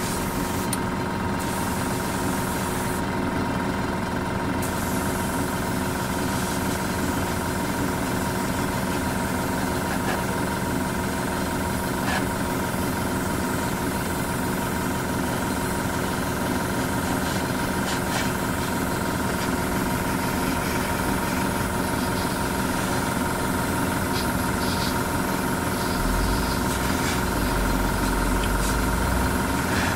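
Airbrush compressor running steadily, a constant motor hum with hiss from the airbrush as paint is sprayed. A deeper low rumble comes in about four seconds before the end.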